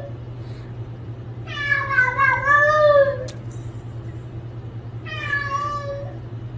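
Domestic cat yowling twice, two long drawn-out meows a few seconds apart, over a steady low hum.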